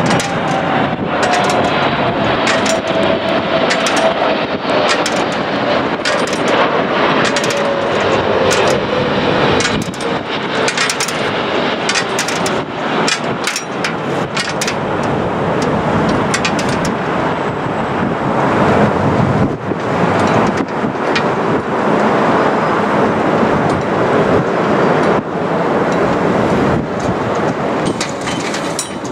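Jet airliner on final approach passing low overhead: loud, steady engine noise with a whine that falls in pitch over the first ten seconds or so as it goes by, then a continuing rumble with many sharp crackles.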